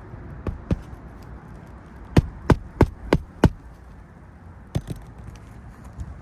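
Hammer driving roofing nails into an asphalt shingle: two light setting taps, then a run of five hard blows at about three a second, and one more strike near the end.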